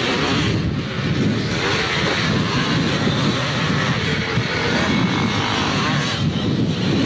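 A pack of motocross motorcycles racing past at full throttle, several engines running hard together.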